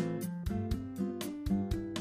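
Background music: a guitar-led track with held notes and a steady beat.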